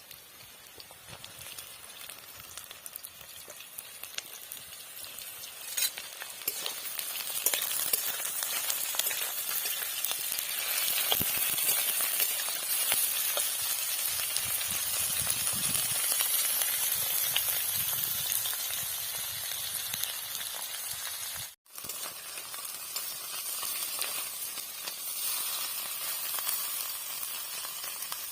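Food frying in hot oil in a pan, a steady sizzle that grows louder over the first several seconds, with scattered small clicks of stirring. The sound cuts out for an instant about three-quarters of the way through.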